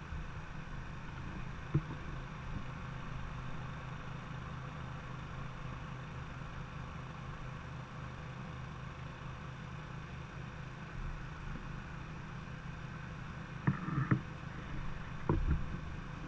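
Steady rush of river water flowing past the bank, with a low steady hum underneath. A sharp knock comes about two seconds in, and a few louder knocks near the end.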